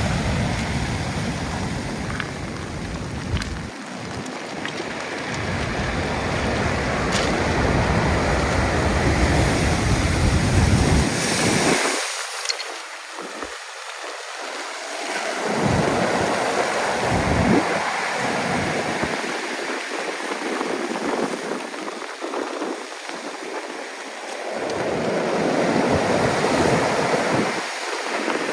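Stormy sea surf: waves breaking and washing on the shore in slow swells that build and ease every several seconds, with wind buffeting the microphone.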